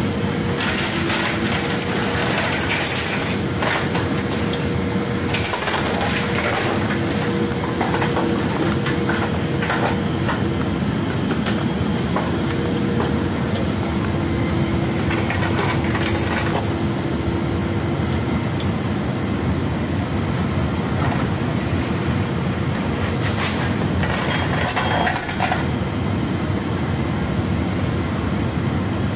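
Steady loud machine drone inside a C-17 Globemaster III cargo hold, with a couple of steady hums in the first half. Scattered metallic clinks and rattles come from steel tie-down chains and binders being tensioned against the cargo-floor fittings.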